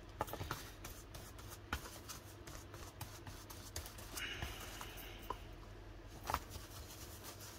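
Faint handling of paper napkin and cardboard packaging: soft rustles and small taps, with a brief scratchy hiss about four seconds in.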